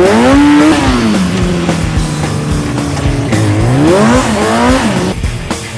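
Kawasaki ZX-6R 636 sport bike's inline-four engine revving up and down under throttle through tight stunt manoeuvres, its pitch climbing and falling twice. Near the end the engine drops back and music with a beat takes over.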